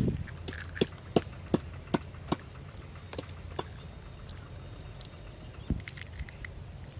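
Handling live eels and bamboo skewers over a plastic basket: a run of five sharp clicks, evenly spaced a little over two a second, then a few scattered clicks later, over a low steady rumble.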